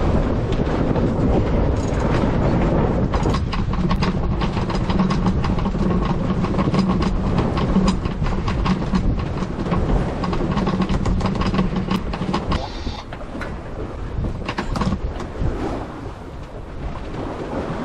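Sailboat sheet winch being ground in to trim the sail after a tack: a fast run of ratchet clicks over wind and water noise, thinning out about thirteen seconds in.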